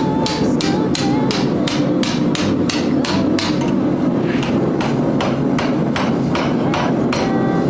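Hand hammer striking hot steel on an anvil in a steady rhythm of about three blows a second, drawing out the split ends of a forged bar; the blows grow lighter after about four seconds. A steady low rush runs underneath.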